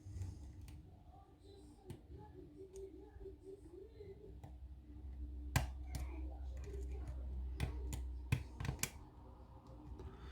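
Small sharp clicks and taps of a lock pick and tension wrench working inside a lock, a few louder clicks coming from about halfway in, over a low rumble.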